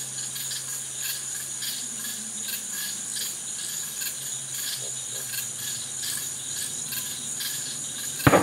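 Night insects chirping steadily in a regular pulse, about two a second. Near the end, a single sharp firework bang.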